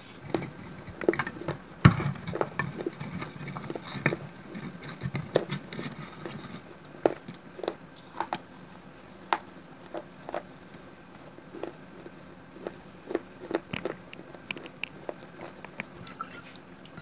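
Close-up crunching and chewing of shards of a baked clay pot (gullak) coated in red clay paste: a run of sharp, brittle cracks, thickest over the first several seconds, then scattered single crunches.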